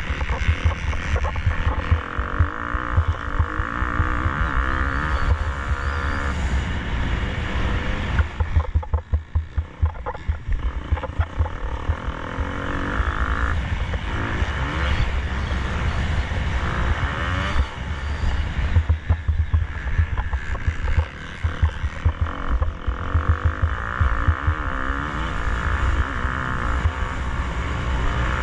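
KTM 250 SX-F four-stroke single-cylinder motocross engine running hard under race load, its revs rising and falling with the throttle. The throttle comes off briefly around nine seconds in.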